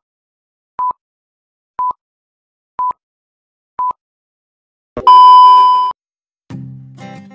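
Film-leader countdown beeps: four short, identical single-pitch beeps about a second apart, then a longer, louder beep about five seconds in that marks the end of the countdown. Acoustic guitar music starts near the end.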